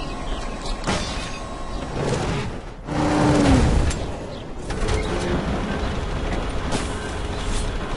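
Mechanical clanking and whirring sound effects of machines moving, with scattered clicks and a short falling tone about three seconds in.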